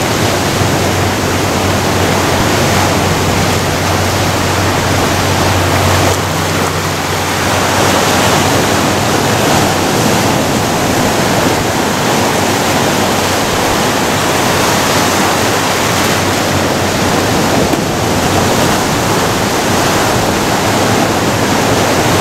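Ocean surf breaking and washing over rocks along the shore, a steady loud rushing.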